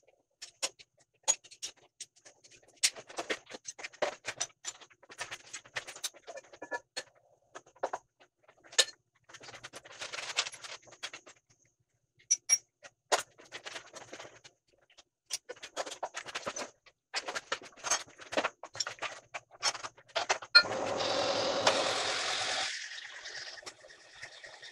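Scattered metallic clinks and knocks of a steel plate and hand tools being handled and set in a Kurt vise on a milling machine table. About twenty seconds in, a loud rushing noise lasts about two seconds, then a steadier machine running sound with a high whine carries on.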